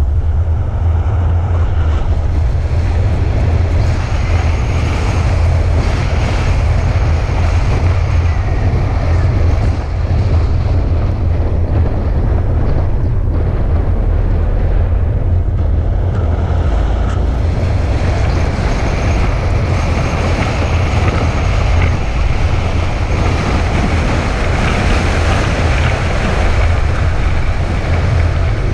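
A vehicle driving: a steady, loud low rumble with a continuous hiss above it, unbroken throughout.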